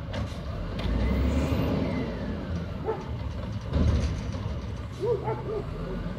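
WhiteGMC Amrep Octo automated side-loader garbage truck working its arm through a dump cycle: the diesel engine revs up to drive the hydraulics, and a faint whine rises and then falls in pitch as the arm lifts and tips a recycling cart into the hopper. A louder knock or bang about four seconds in comes as the cart is handled and lowered back to the curb.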